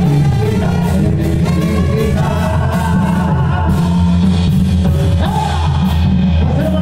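Live banda music, loud through the stage speakers: a brass band with sousaphone bass, brass and drums plays with a singer over an even beat.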